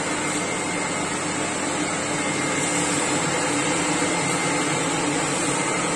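Inalsa kitchen chimney (range hood) running, its blower drawing air up through the steel baffle filters with a steady rushing of air and a faint hum.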